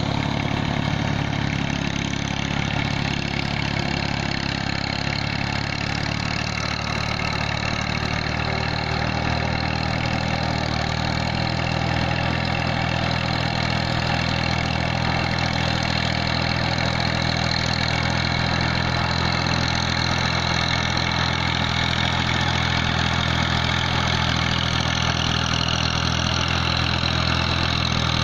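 Massey Ferguson 240 tractor's three-cylinder diesel engine running steadily under load while it drags a leveling plank through a flooded rice field.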